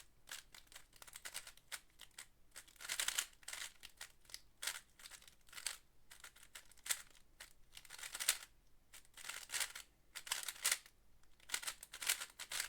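A GAN 12 Maglev UV speedcube being turned fast during a timed solve. The plastic layers clack in quick irregular bursts of turns with short pauses between them.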